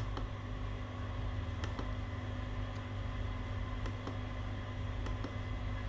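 A few faint clicks of the push buttons on an LED strobe light's flash controller being pressed, over a steady low hum.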